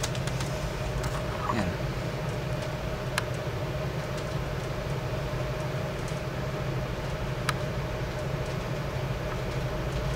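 Steady mechanical hum with a fainter high whine over it, and a few light clicks about three and seven seconds in.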